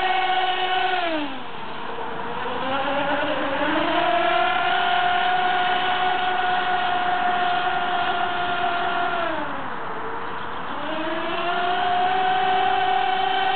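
Radio-controlled offshore racing boat's motor running at high speed with a steady high note. Its pitch drops twice as the throttle eases, about a second in and again near ten seconds, each time climbing back up to full speed.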